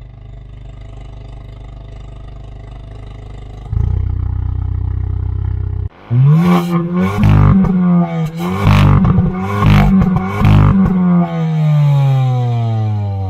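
Hyundai i20N's 1.6-litre turbocharged four-cylinder idling, then revved in a series of quick throttle blips with short sharp cracks between them. The revs fall away smoothly near the end.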